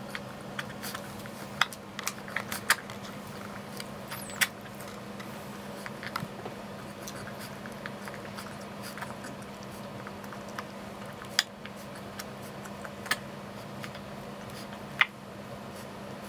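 European wolf pup, three weeks old, suckling from a baby bottle's nipple: irregular wet sucking clicks and smacks, a few of them sharp, over a steady low hum.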